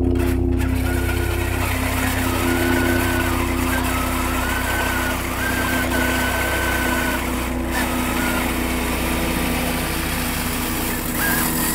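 The brushless electric motor of a Traxxas X-Maxx 8S RC truck, fitted with saw-blade wheels on the ice, running at low throttle. A steady hum runs under a higher whine that steps up and down in pitch several times as the throttle changes.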